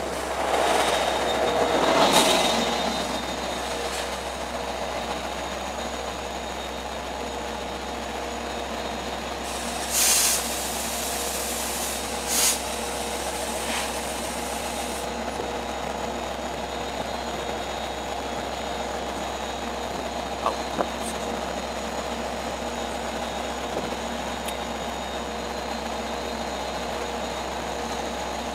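Long Island Rail Road DE30AC diesel locomotive and train standing at the platform with a steady engine hum. A short squeal swells and fades in the first few seconds, and two short bursts of air hiss come about ten and twelve seconds in.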